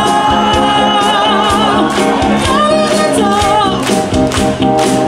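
Live pop band playing, with singing over held chords and drums; the drum strokes come closer together in the second half.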